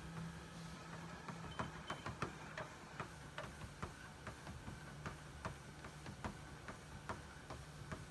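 A treadmill's motor humming steadily under light, quick ticks of a husky puppy's claws on the moving belt as it walks, about two to three ticks a second.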